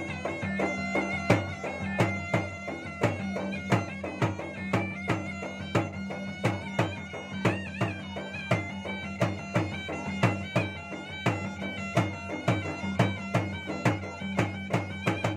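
Traditional Makassar ensemble playing: two gendang drums struck in a fast, steady pattern of about two to three strokes a second, under a sustained wind-pipe melody that wavers in pitch.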